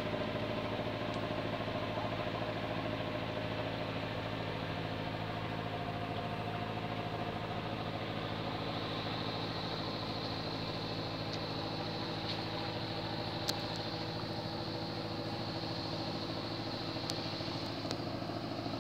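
Boat engine running steadily at an even pitch, with a single sharp click about thirteen seconds in.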